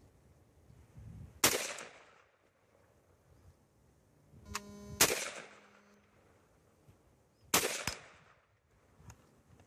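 AR-15 rifle fired three single shots, spaced a few seconds apart, each a sharp crack with a short fading echo.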